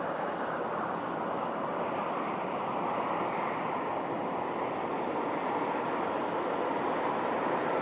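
Steady, even rushing outdoor ambience with no distinct events, the broad wash of wind and distant town noise.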